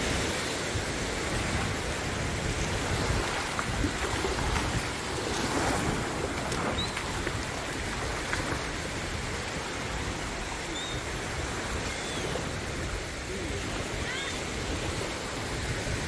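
Small Gulf surf waves washing onto the shore with wind buffeting the microphone, a steady wash of noise. A few short, high chirps come through in the second half.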